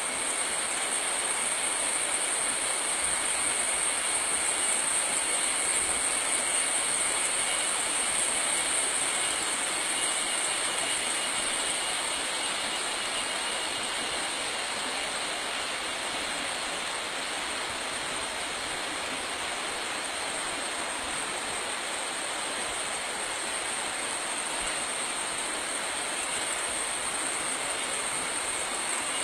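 A steady hiss with a constant high-pitched whine over it, easing slightly about halfway through.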